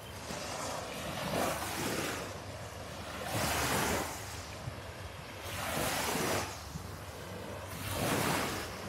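Small waves breaking and washing up a sandy beach, a swelling rush about every two seconds, four times.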